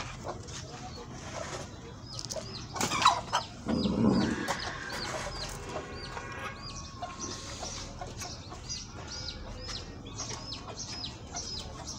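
Chickens clucking in a farmyard, with a rapid run of short, high chirps repeating throughout and a louder, lower animal sound about three to five seconds in.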